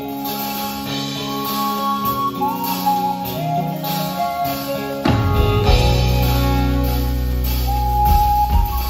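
Live band playing a soft-rock song: a melody of held, sliding notes over steady chords, then bass and drums come in about five seconds in and the music gets fuller and louder.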